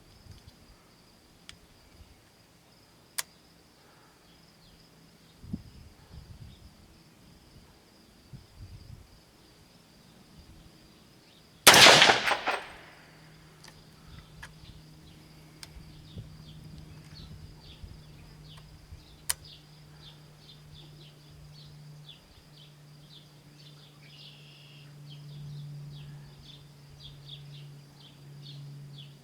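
A single shot from a 16-inch-barrel .300 Blackout AR-15 rifle about twelve seconds in, loud and sharp with a short ringing tail. Insects chirp steadily throughout, and a low steady hum comes in just after the shot.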